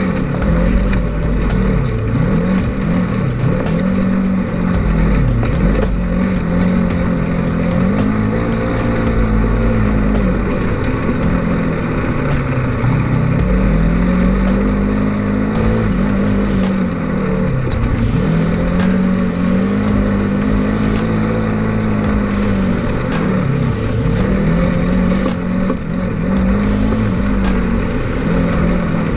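Polaris RZR 900 side-by-side's twin-cylinder engine running under way, its pitch rising and falling every few seconds as the throttle is opened and eased off.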